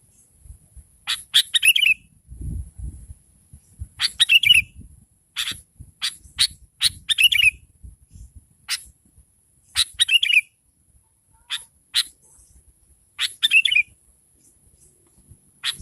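Sooty-headed bulbul calling: short, sharp chattering phrases every second or two, several ending in a quick falling trill. Faint low rumbles sit underneath.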